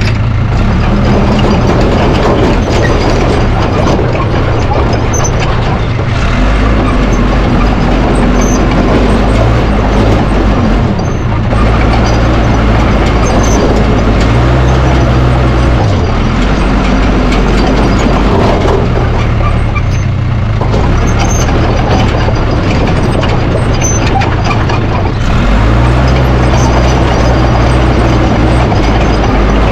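Case 550G bulldozer's diesel engine running under load, its pitch stepping up and down several times as the machine works, over a steady mechanical clatter.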